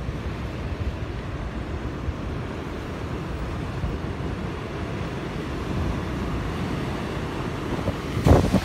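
Heavy sea surf as a steady low rush of noise, with wind buffeting the microphone; a louder gust of rumbling noise breaks in near the end.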